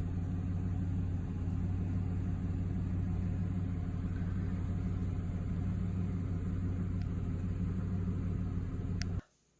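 A steady, low engine hum that runs evenly and cuts off abruptly near the end.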